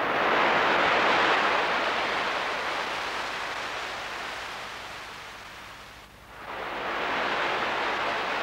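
Sea waves washing in: two long swells of surf. The first fades slowly over about five seconds, and the second rises about six and a half seconds in.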